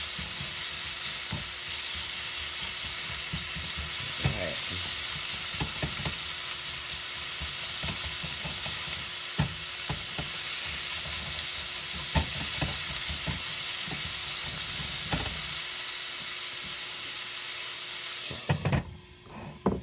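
Ground pork sizzling in a nonstick skillet, stirred and broken up with a silicone spatula that knocks and scrapes against the pan now and then. Near the end a lid is set on the pan with a couple of clanks and the sizzling drops away sharply.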